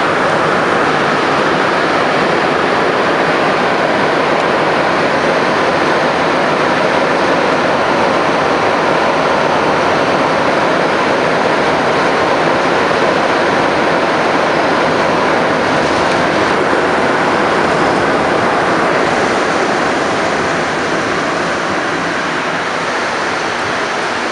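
Montreal Metro MR-73 rubber-tyred subway car running through the tunnel, heard from inside the car as a loud, steady rushing noise that eases off a little near the end.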